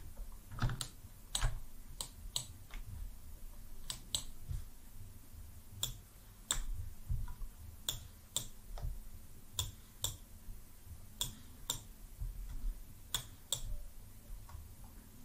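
Scattered computer mouse and keyboard clicks, one or two a second at irregular intervals, over a faint steady hum.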